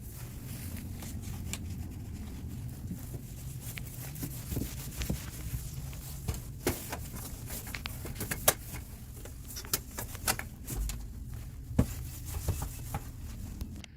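Scattered knocks, clicks and rubbing as household items are handled and surfaces wiped down, over a steady low hum.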